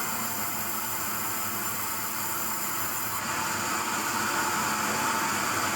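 Sawmill machinery running steadily, a continuous hiss with a faint whine, its tone shifting slightly about three seconds in.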